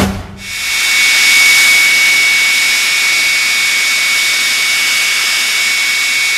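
Aermacchi MB-339's Viper turbojet idling: a steady jet whine with a strong high-pitched tone, fading up about half a second in and then holding even.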